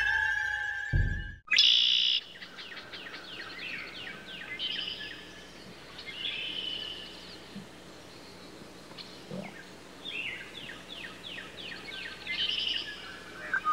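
A held, eerie music chord ends about a second and a half in, and a birdsong ambience takes over. Small songbirds chirp and trill in quick runs of falling notes, louder at the start and again near the end.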